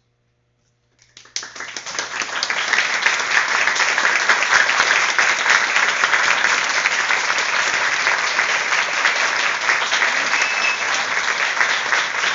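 About a second of silence, then an audience starts applauding suddenly; the clapping builds over a second or so and carries on steadily at the close of the performance.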